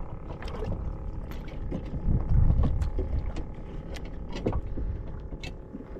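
Small fishing boat on open water: a low rumble of water and motion against the hull, swelling about two seconds in, under a faint steady motor hum. Light clicks and knocks of hands handling tackle and a small trout come through it.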